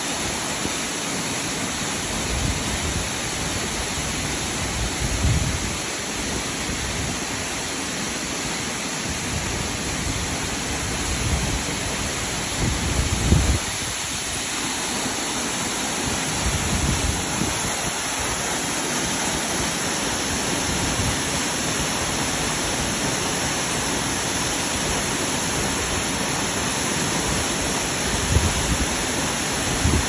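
Tall multi-tiered waterfall cascading over rock: a steady, dense rush of falling water. A few brief low rumbles rise out of it, the strongest about 13 seconds in.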